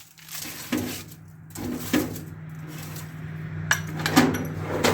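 Small objects being handled and knocked about inside a toolbox: a handful of separate clicks and knocks, with a steady low hum coming in about a second and a half in.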